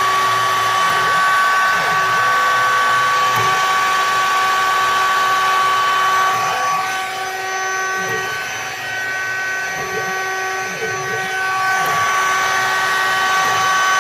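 High-speed spindle on a CNC-converted BF16 mill running at about 20,000 rpm while milling a pocket: a steady whine of several high tones over a hiss. It softens for a few seconds in the middle, then comes back up.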